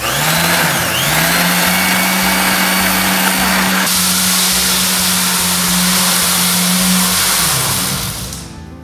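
Corded electric sander switched on, its motor humming steadily as it sands the floor along the wall, with a brief dip in speed about a second in. Near the end it is switched off and winds down.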